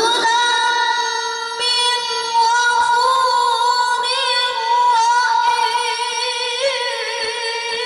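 A boy qari reciting the Quran in melodic tilawah style into a microphone, holding one long high note with wavering ornaments that steps up slightly near the end.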